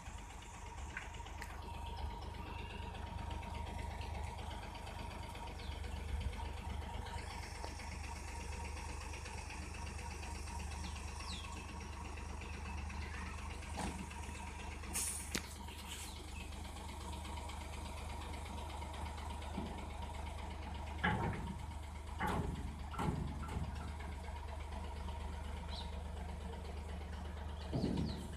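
Diesel engine of a dump truck running steadily as the tipped bed is lowered, then pulling away, with a few short knocks about three quarters of the way through.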